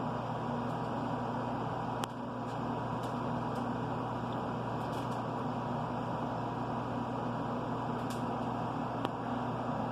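A steady machine hum with a few steady tones in it, broken by a handful of faint, light clicks and taps.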